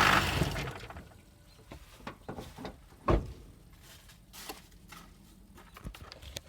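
Diesel truck engine switched off, its idle dying away within the first second. Then a few faint scattered knocks and clicks, the loudest a single sharp thump about three seconds in.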